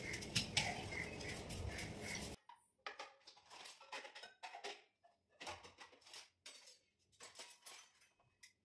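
Stainless-steel kitchen bowls and vessels clinking and knocking together as they are lifted and stacked, in scattered light strikes. Before that, about two seconds of steady background noise cut off abruptly.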